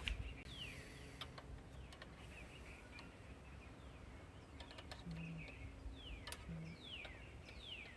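A bird calling outdoors with short falling whistles, repeated several times, over scattered faint clicks and a low steady hum.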